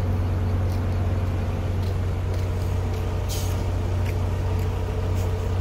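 Asphalt (bitumen) spray truck's engine running with a steady low hum, with a few short hissing bursts now and then.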